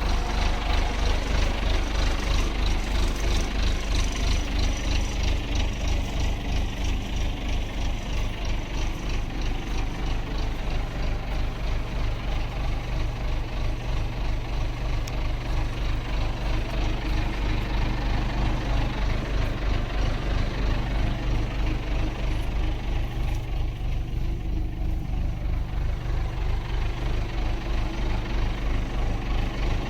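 Naturally aspirated 3.9-litre four-cylinder Perkins diesel engine of a 1984 James 52 C-4 backhoe loader idling steadily, with an even, rapid pulsing.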